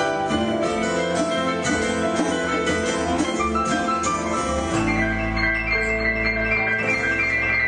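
Live acoustic band playing an instrumental passage on electric piano, violin, acoustic guitar, bass and cajon. A busy run of quick piano notes gives way about five seconds in to held chords over a deep bass note.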